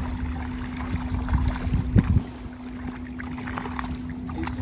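Water splashing and dripping as a cast net is hauled through shallow water toward the bank. Wind rumbles on the microphone throughout, with a louder low thump about two seconds in and a steady low hum underneath.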